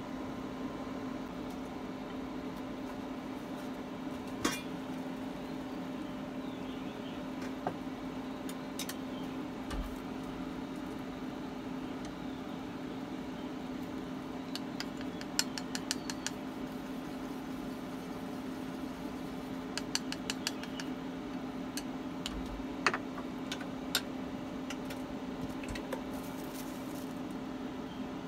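Steady hum of a Sunhouse induction cooktop running under a stainless steamer pot, with a light hiss. Scattered sharp clinks of metal and ceramic come through as the pot lid and bowls are handled.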